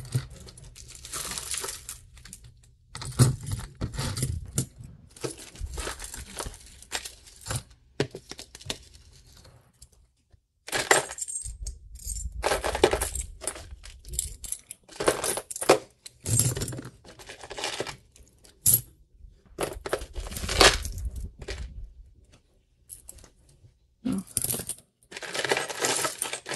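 Metal costume jewelry (chains, bangles and rings) clinking and jangling in irregular bursts as hands rummage through and sort a tangled pile of it, with short lulls about ten seconds in and again just past twenty seconds.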